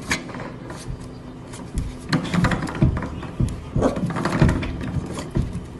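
Corgi puppy scratching and pawing at a closed door: irregular scrapes and knocks, busiest from about two seconds in.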